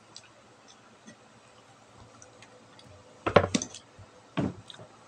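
Plates and cutlery clinking and knocking on a table: a quick cluster of sharp knocks about three seconds in, and another clink about a second later, with only faint ticks before.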